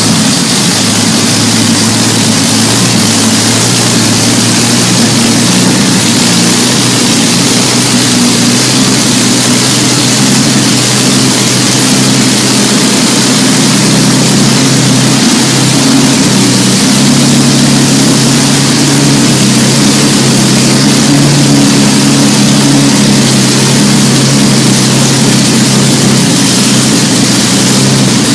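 Rolls-Royce Merlin 27-litre liquid-cooled V-12 aero engine running loud and steady on a test stand, exhausting through short open exhaust stubs.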